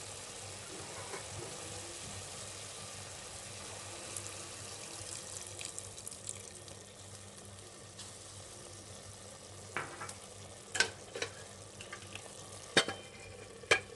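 Keema (minced meat) sizzling in a pressure cooker as water is poured in over it. A few sharp knocks come in the last few seconds.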